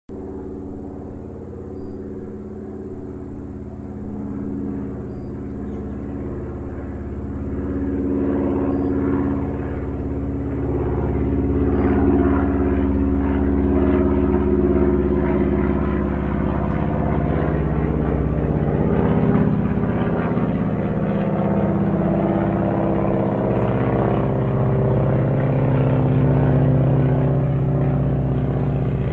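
Airplane flying overhead with a steady engine drone. It grows louder over the first ten seconds or so, then holds at a loud level, its low tones shifting slightly in pitch.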